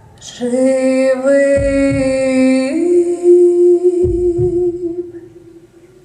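A woman singing one long held note that steps up in pitch about halfway through, over a backing track with a low double thump about every two and a half seconds.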